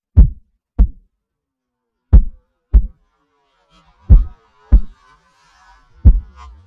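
Heartbeat sound effect: deep double thumps, lub-dub, a pair about every two seconds.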